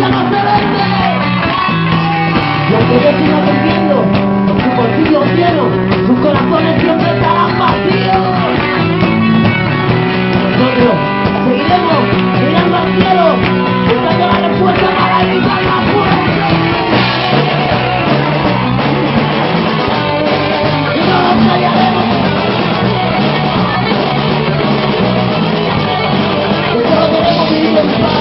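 Rock band playing live at full volume: a stepping bass line under electric guitar and shifting melodic lines, with no break.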